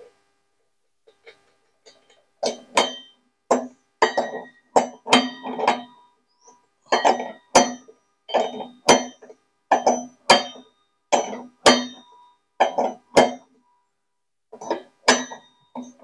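Ringing metal clinks, two or three a second in runs with short pauses, as a T-handle wrench turns a bolt at the centre of a front-loading washing machine's outer tub. The bolt is not yet fully tightened.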